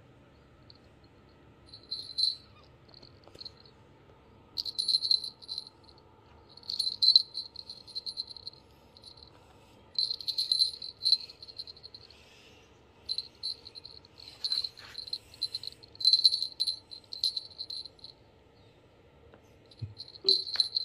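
A small bell jingling in irregular shaken bursts of a second or two, as a cat bats at a string wand toy; the longest, loudest runs come about seven and sixteen seconds in.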